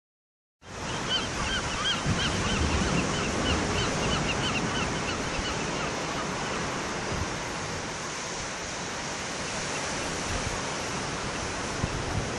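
Surf breaking and washing over a rocky shore as a steady rushing hiss. Over it, for the first few seconds, a bird gives a rapid series of short, repeated cries that fade out.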